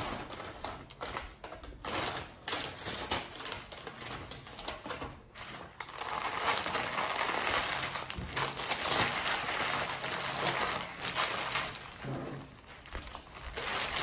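Paper crinkling and rustling as a paper takeout bag and sandwich wrapper paper are handled, folded and scrunched up. It is denser and louder from about six seconds in, easing off near the end.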